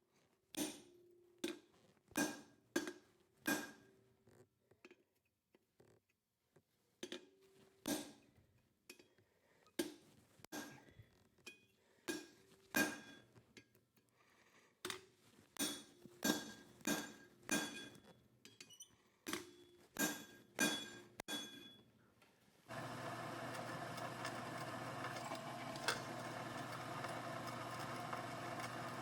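Hammer striking a ball punch into steel bar to knock in divots: single ringing metal blows, roughly one a second with short pauses. Near the end the strikes stop and a steady machine noise with a low hum starts.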